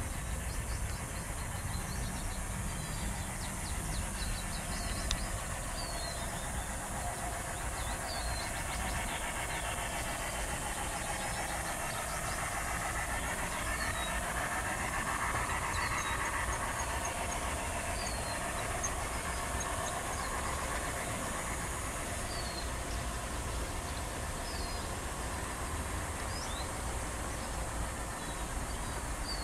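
A G-scale garden model train running past on its track, the sound of its wheels and motor swelling to its loudest around the middle and then fading. A bird chirps again and again over it, and there is a steady low rumble underneath.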